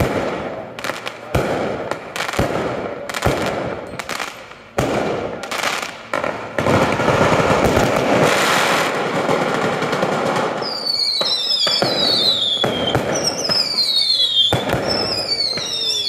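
Daytime fireworks battery of aerial shells: a string of sharp bangs at first, then a dense spell of rapid crackling about six seconds in. From about ten seconds on come repeated whistles falling in pitch, with bangs among them.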